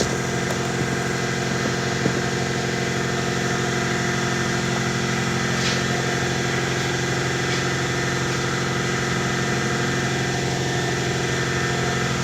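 A 16-year-old shop air compressor running steadily: a constant, loud motor-and-pump drone.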